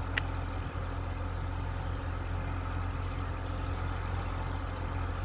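Steady low rumble of an idling engine, with one short sharp click about a quarter second in.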